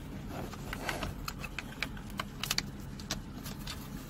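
Irregular small plastic clicks and taps as a wiring-harness connector is fitted to the back of a hazard-flasher switch with built-in passenger airbag cutoff indicator and handled among the dash parts, over a faint low hum.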